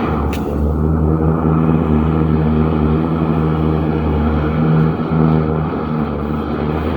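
Hydro jetter running steadily under load with a low, even engine hum, as it blasts water through a clogged sump pump discharge line.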